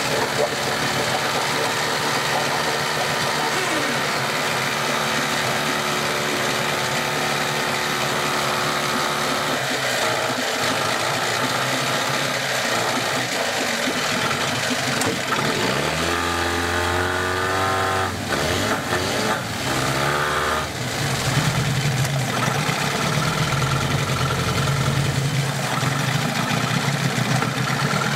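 15 hp Johnson two-stroke outboard running in a water test tank, its propeller churning the water. About two-thirds of the way through, its pitch rises and falls several times as the throttle is worked. It then settles into a steady, lower-pitched idle.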